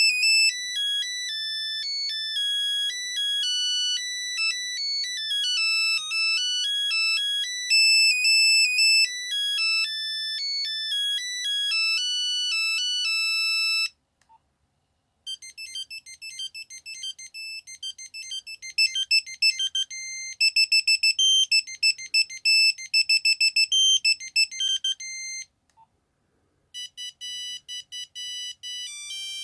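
Nokia 3210 playing its monophonic ringtones one after another, each a melody of single beeping notes. The first tune ends about halfway through. After a short pause a second, faster tune plays. After another short pause near the end, a third tune begins.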